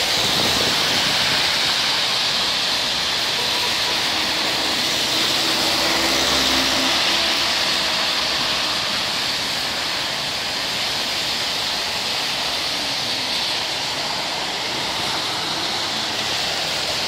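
Steady rushing hiss of tyres on a wet road in passing traffic, with a faint low hum for a few seconds near the middle.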